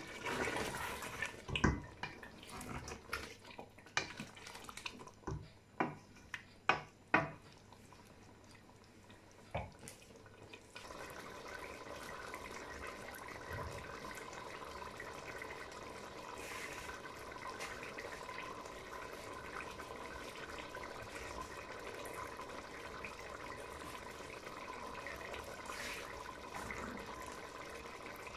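Wooden spoon knocking and scraping against a stainless steel pot as chicken curry is stirred. From about eleven seconds in, the curry bubbles steadily at a simmer, its half cup of added water coming to the boil.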